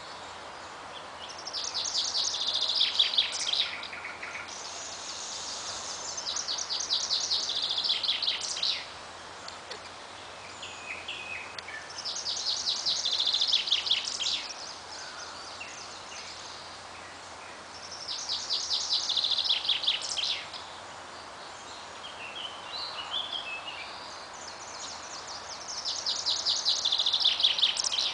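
Male common chaffinch (Fringilla coelebs) singing its territorial song: five phrases, each a rapid trill of repeated notes about two and a half seconds long ending in a short flourish, repeated roughly every six seconds.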